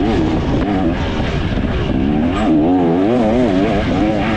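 2024 KTM 300 XC's two-stroke single-cylinder engine running under a rider on a dirt trail, its revs rising and falling rapidly as the throttle is worked.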